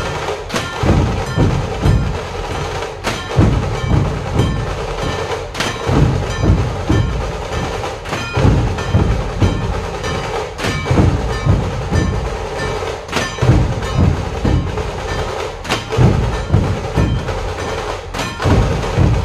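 Dhol-tasha troupe drumming: massed dhol barrel drums beating a steady driving rhythm with tasha drums rattling over them. A sharp accented strike recurs about every two and a half seconds.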